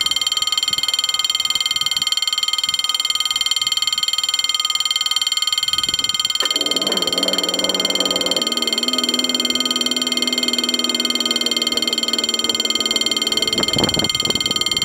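Level crossing warning bell ringing steadily. About six seconds in, a lower electric hum from the barrier mechanism joins it as the booms lower; the hum stops shortly before the bell cuts off near the end, once the barriers are down.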